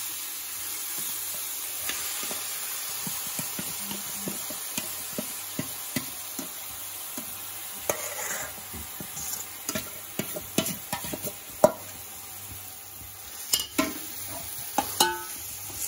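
Marinated chicken sizzling in hot oil in a metal pot, with a metal slotted spoon scraping and clinking against the pot and bowl as the chicken is tipped in and stirred. The clinks and scrapes get busier and louder about halfway through.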